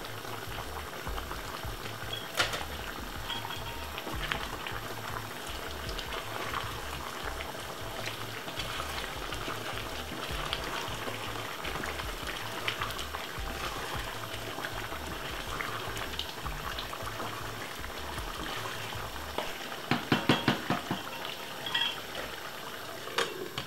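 A pot of chicken stew simmering uncovered, bubbling and sizzling steadily while a wooden spoon stirs it. A quick run of sharp knocks comes near the end. Background music with a low bass runs underneath.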